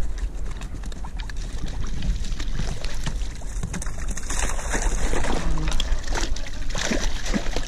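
Wind rumbling on the camera microphone, with small knocks and rustles of fishing gear being handled on an inflatable float tube.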